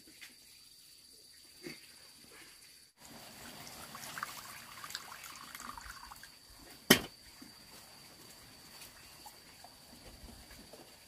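Water poured from a kettle into a small ceramic bowl, a trickling splash that starts suddenly about three seconds in and lasts a few seconds, followed by a single sharp knock.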